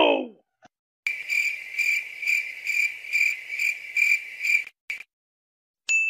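The tail of an "oh no" cry trails off at the very start. Then a cricket chirps steadily, about two chirps a second, for nearly four seconds, and a bell dings right at the end.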